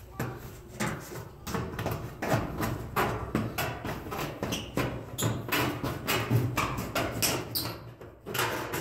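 Old hand tin snips cutting through a corrugated metal roofing panel: a quick series of sharp metal snips and crunches, about three a second.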